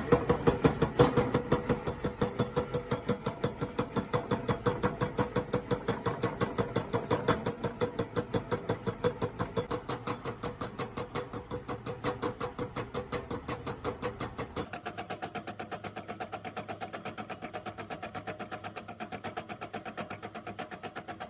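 Rapid, even hammering on metal, about five blows a second, with a thin steady high whine that jumps to a higher pitch about two thirds of the way through.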